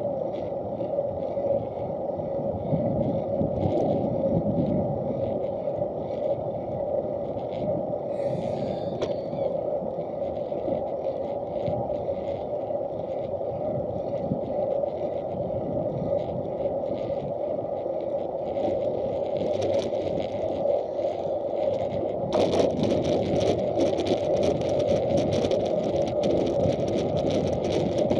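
Steady rolling and wind noise from riding a bicycle along a paved path, heard through an action camera's housing. About four-fifths of the way in it turns into a louder, hissier rattle, as on a rougher surface.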